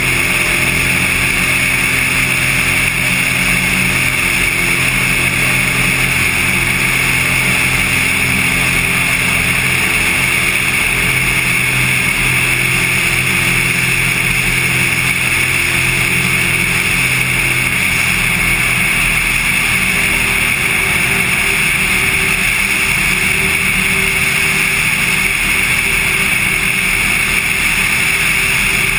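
Cessna 182 light aircraft in flight: its piston engine and propeller make a loud, steady drone with a constant hiss of rushing air over it. The drone's tone shifts slightly about two-thirds of the way through.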